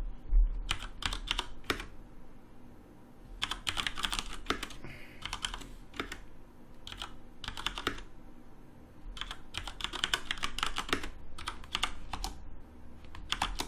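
Computer keyboard typing: short runs of quick keystroke clicks with brief pauses between them, as a shell command is entered.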